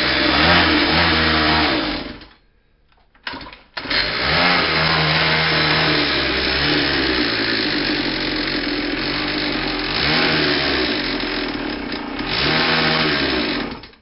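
A mini dirt bike's small pull-start engine running with the throttle opened and closed, its revs rising and falling. It dies about two seconds in, is brought back to life a couple of seconds later, and runs on, rising and falling, until it cuts out at the end.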